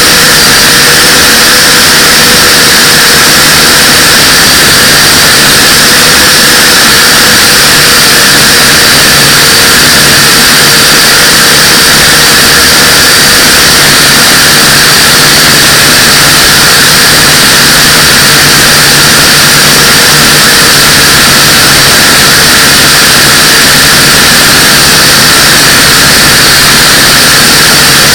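Pioneer UFO 509V quadcopter's motors and propellers whirring steadily at flight speed, very loud and close, with a thin steady whine over a broad rushing noise.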